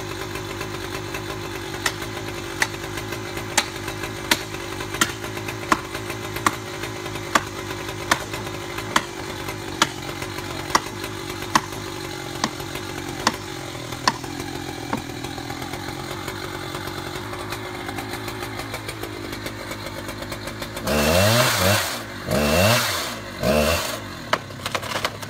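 Gas chainsaw with a long bar cutting into a large tree trunk, running steadily for most of the time, with a sharp tick about every 0.8 seconds through the first half. Near the end it is revved hard in several loud bursts, its pitch rising and falling.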